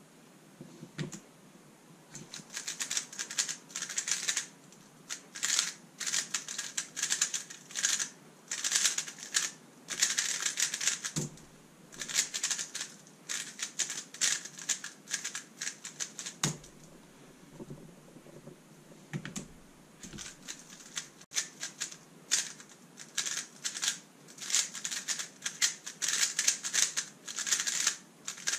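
Thunderclap v3 M magnetic 3x3 speedcube turned very fast, making rapid runs of sharp plastic clicks broken by brief pauses, with a few dull knocks in between.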